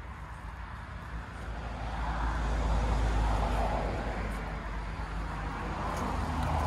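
Car traffic: a rushing mix of engine and tyre noise that swells and fades twice, over a steady low rumble.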